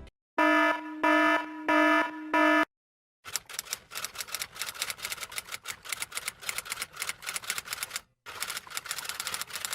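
A sound effect of four short electronic beeps on one steady pitch, about half a second each, followed after a brief pause by a fast, uneven run of sharp clicks, typewriter-like, that stops briefly near the end and then goes on.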